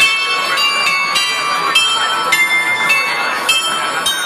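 A bell glockenspiel, a row of small metal bells mounted on a market stall front, plays a tune: a struck bell note about every half second, each ringing on into the next.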